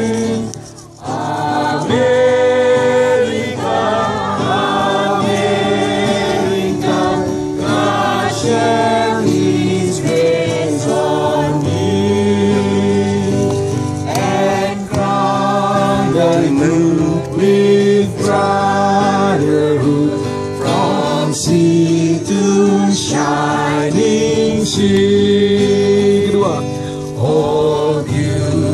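A group of people singing a song together, accompanied by an acoustic guitar, with a short break about a second in.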